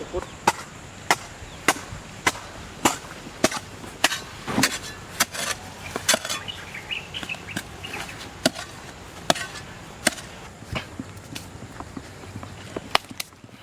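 Knife chopping on a cutting board in a steady rhythm of sharp strokes, a little under two a second.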